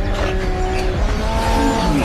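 Pigs squealing in long, steady, overlapping squeals at several pitches, over a constant low rumble.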